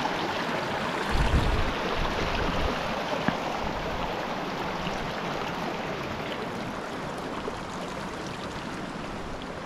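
A small, shallow mountain stream flowing steadily over rocks, heard close up from just above the water.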